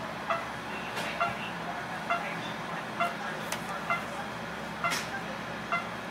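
Hospital bedside patient monitor beeping steadily, a short beep about once every 0.9 seconds, over a low steady hum, with a few sharp clicks in between.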